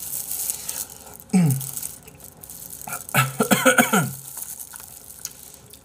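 A man eating a bone-in chicken foot with a mouthful, making wet sucking and chewing mouth sounds. Twice he makes a wordless hum with his mouth full: a short falling one about a second and a half in, and a longer, wavering one around the middle.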